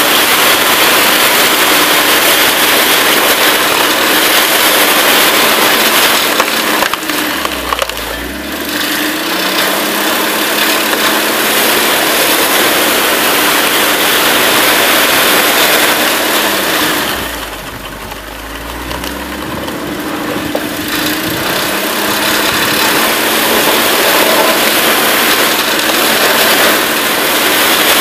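Engine of a homemade screw-cone wood splitter running loud and steady, twice bogging down in pitch and recovering as the spinning cone is driven into a log and splits it.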